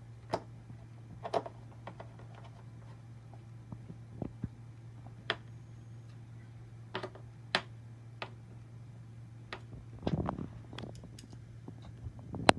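Scattered light clicks and taps of an iPad and a photo booth's housing being handled and fastened together, with a small cluster of knocks near the end, over a steady low hum.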